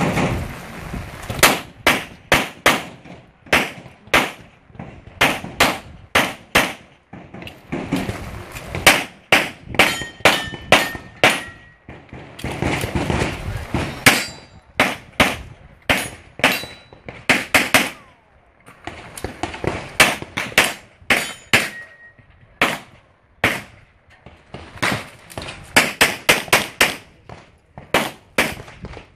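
Handgun fired in rapid strings, the shots mostly in quick pairs and clusters, with gaps of a second or two between strings.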